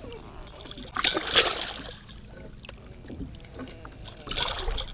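Water splashing as a walleye hooked on a crankbait is grabbed by hand at the boat's side and lifted out of the lake: a loud burst of splashing about a second in and a shorter one near the end, over a low steady rumble.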